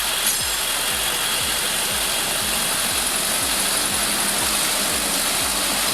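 Heavy off-road truck's diesel engine running steadily, with an even low throb about two to three times a second under a broad hiss of noise.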